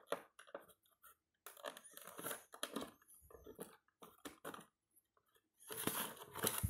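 Thin wire ties being untwisted and pulled out through holes in a cardboard box insert: irregular short scratches and rustles of wire on cardboard. Near the end comes a longer, louder rustle as the box is handled.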